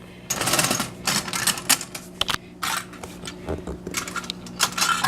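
Tin-plate toy train cars clicking and clattering against each other and the metal track as they are handled and set in place, in a quick irregular run of light metallic clacks.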